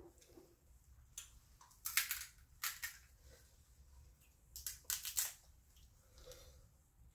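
King crab leg shells cracked and broken apart by hand: several short, sharp cracks and crunches, the loudest about two seconds in, with wet eating sounds between them.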